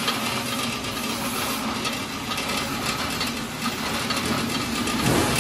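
Small oil expeller (oil mill) machine running with a steady mechanical hum while oilseed is poured into its steel hopper. The hum briefly dips and comes back up in pitch near the end.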